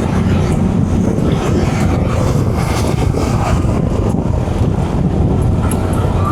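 A moving vehicle running steadily: a constant low hum under an even rushing noise.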